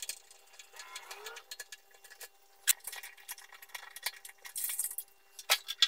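Scattered light metallic clicks and clinks of tools and fasteners as the dust extractor motor is worked loose from its wall mounting board, with a few sharper clicks about three seconds in and near the end. The sound is thin, with no low end.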